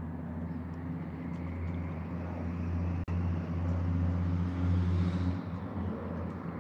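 A steady low engine drone with a rushing noise that swells about four to five seconds in and then fades, like a motor vehicle or aircraft passing at a distance.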